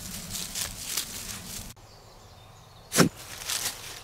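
A low steady hum at first, then a dog digging in dry leaves and soil: scratching of its paws, one sharp, loud scrape about three seconds in.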